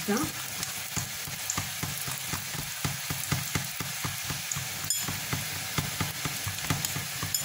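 Layered Moroccan flatbreads (msemen) frying in oil in a cast-iron pan: a steady sizzle with frequent small crackling pops.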